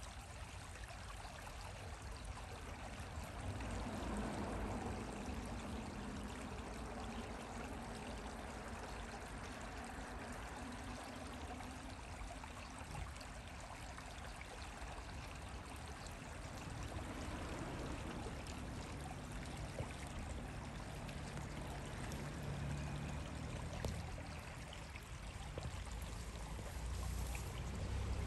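Steady rushing outdoor background noise with a low rumble underneath, like running water.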